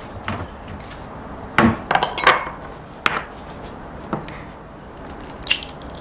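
Glass mixing bowls and eggs set down on a kitchen counter, with a cluster of knocks and glassy clinks near two seconds in and single taps after. Near the end comes one sharp crack as an egg is broken open.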